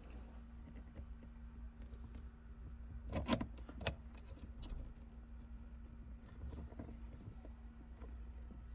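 Light clicking and rattling of a shift knob and small parts being handled during a shift knob swap, with a louder clatter about three seconds in, over a steady low hum.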